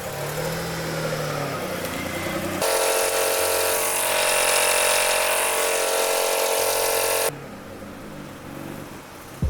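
Car engine running, its pitch rising and falling gently. About two and a half seconds in, a loud steady high-pitched noise with several tones starts abruptly, lasts about four and a half seconds, then cuts off, leaving the engine again.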